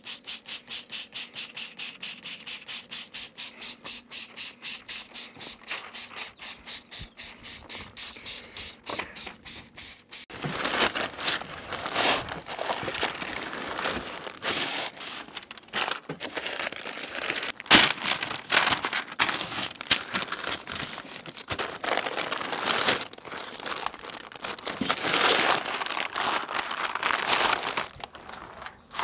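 Trigger spray bottle squirting in quick, even pumps, several a second, for about ten seconds. Then stiff butcher paper crinkles and rustles in irregular bursts as it is folded around a brisket.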